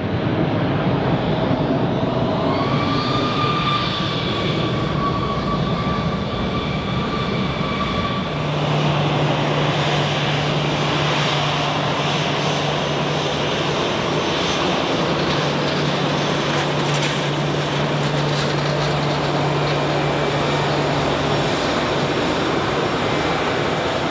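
Jet airliner engines running, with a steady high whine over the engine noise for the first eight seconds or so. The sound then changes abruptly to the steady noise and low hum of jet airliners taxiing.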